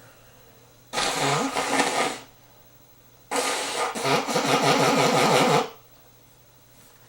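A man blowing his nose hard into a tissue twice: a short blast of about a second, then a longer one with a low, rattling flutter.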